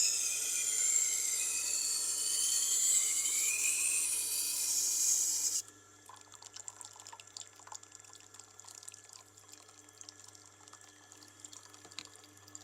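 Knife blade being ground on a Tormek's water-cooled sharpening stone: a loud high hiss with a wavering pitch as the blade moves across the wheel. About five and a half seconds in the blade comes off the stone suddenly, leaving only the machine's faint low hum and a few faint ticks.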